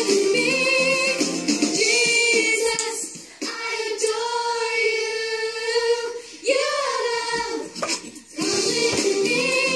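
Upbeat Catholic children's song playing: several voices singing together over music, with brief breaks in the singing.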